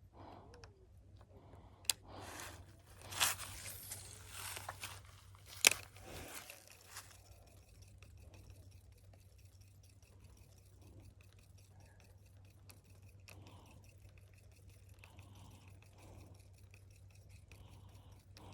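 Close handling noise: a few sharp clicks and scraping rustles during the first seven seconds, the loudest a click about six seconds in. After that only a faint steady low hum.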